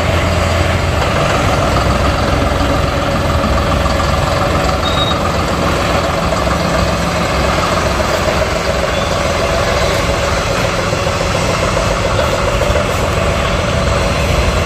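John Deere 5405 tractor's diesel engine running steadily at low speed, a constant hum with no revving.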